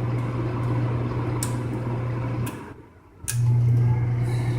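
Gas furnace running with a steady low hum, broken by a click about two and a half seconds in, a gap of under a second and another click before the hum resumes.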